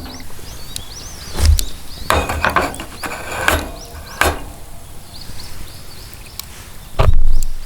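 Several sharp wooden knocks and thuds, the loudest near the end, over small birds chirping repeatedly in short high notes.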